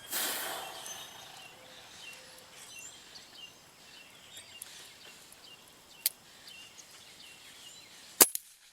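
A Benjamin Titan GP .22 gas-piston air rifle firing one shot near the end: a single sharp crack. A smaller click comes about two seconds before it, with faint bird chirps in the background.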